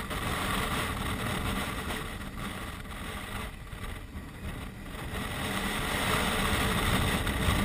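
Touring motorcycle running at road speed, with wind rushing over a helmet-mounted microphone. The sound dips about halfway through and builds again toward the end.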